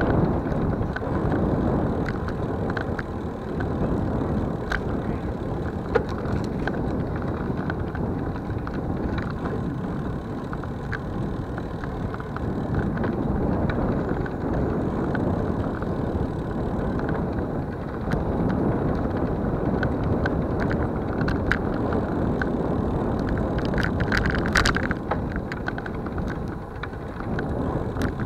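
Wind buffeting the microphone and road rumble from a camera riding along a concrete road, with scattered light clicks and rattles and a short clatter about three-quarters of the way in.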